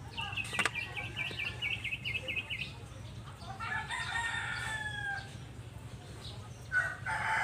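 A rooster crowing twice, once about four seconds in and again near the end, each crow dropping in pitch as it ends. Before that comes a fast run of chattering bird notes lasting a couple of seconds, and a sharp knock about half a second in as a clay pot is set down on a clear plastic dome lid.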